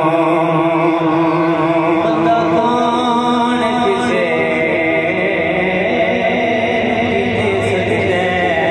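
A man singing a naat, an Urdu devotional poem in praise of the Prophet, into a microphone, drawing out long, slowly wavering notes.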